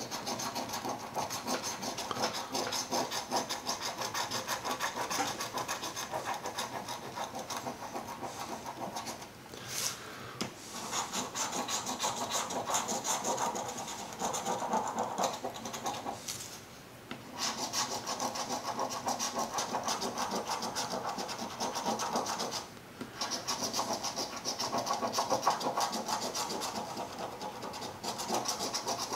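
A copper coin scraping the coating off a scratch-off lottery ticket: rapid back-and-forth scratching strokes in long runs, with short pauses about nine, sixteen and twenty-two seconds in.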